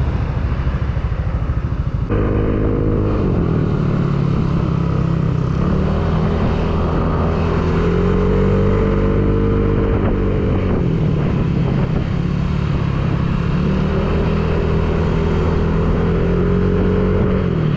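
Motorcycle engine running under way over a steady rush of noise. About two seconds in the sound changes abruptly, and from then on the engine note rises and falls slowly with speed.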